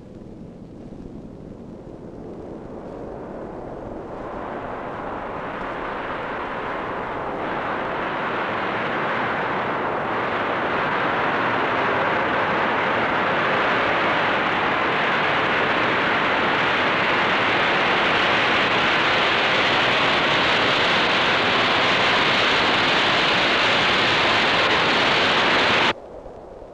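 Jet engines of a B-52 Stratofortress bomber taking off: a rushing jet noise that grows steadily louder over many seconds, then cuts off abruptly near the end.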